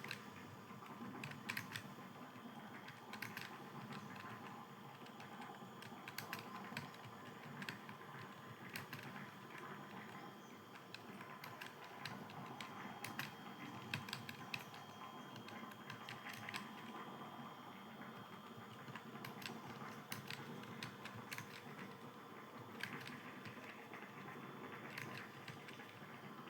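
Computer keyboard being typed on steadily, an irregular run of quick key clicks with brief pauses, over a faint steady hum.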